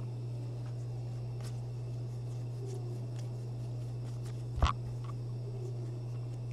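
Trading cards being flipped and slid off a stack by hand: faint soft ticks and rustles, with one sharper click about four and a half seconds in, over a steady low hum.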